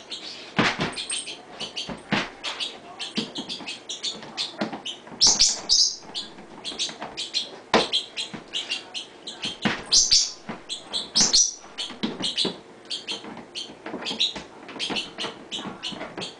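An Alaskan Malamute prying at the double-lipped lid of a plastic food drum with her teeth and muzzle: many quick clicks, knocks and scrapes of teeth on hard plastic, with a few short high squeaks.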